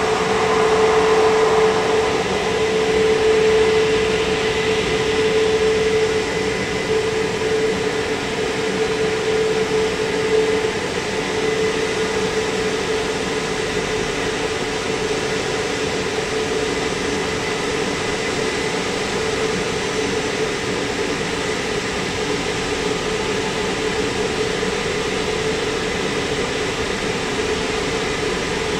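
Christ Aquatus Prime rollover car wash's drying blowers running as the gantry passes its roof dryer nozzle over the vehicle. The blowers give a steady rushing sound with a hum and a faint high whine. The hum wavers for the first ten seconds or so, then settles steady.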